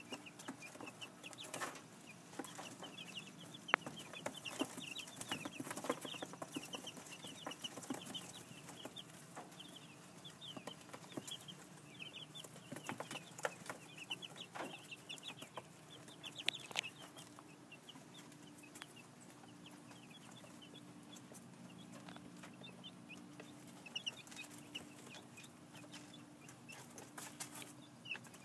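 A flock of two-week-old chicks peeping continuously in short, high cheeps, with scattered clicks and rustles from their feet and beaks in the wood shavings.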